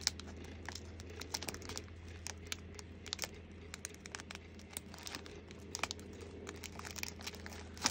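Small plastic bag of diamond-painting resin drills crinkling as it is handled and pierced with a craft knife, with scattered small clicks and rustles throughout.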